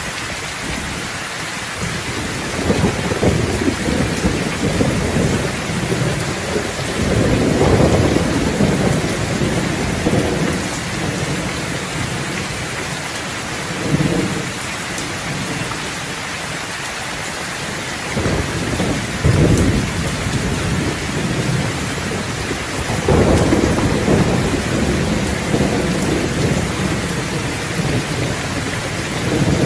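Steady rain hissing, with rolling thunder rumbling over it several times; the longest and loudest rolls come around 8 seconds in and again from about 23 seconds.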